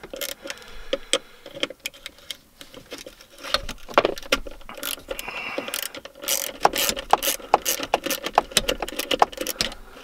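Ratchet wrench clicking in irregular runs while backing the terminal nuts off a PAC 80 battery isolator, with a faint steady hum underneath.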